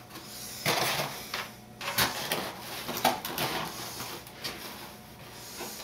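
Handling noise from a foam model airplane being turned and held on a work table: irregular rustling with several light clicks and knocks.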